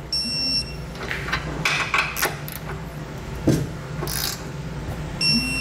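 Snap-on electronic torque wrench beeping as a bolt reaches its set torque: a short high beep just after the start and another near the end. Between the beeps come ratchet clicks and metal clinks from the wrench on the base plate bolts.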